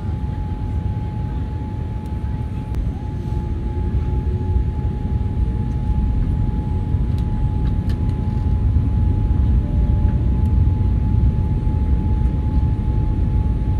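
Airliner cabin noise on approach: a steady low rush of airflow and engines, with a thin steady whine of the flap drive as the flaps extend. The rush grows slightly louder about four seconds in.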